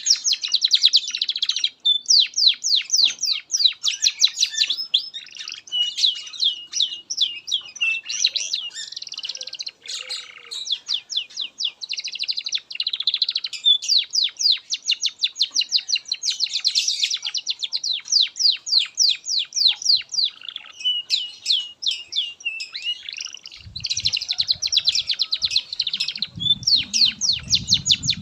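Domestic canary singing a long, unbroken song of fast trills and rapidly repeated high notes, the kind of song used to teach young canaries. A low rumble sits under the song near the end.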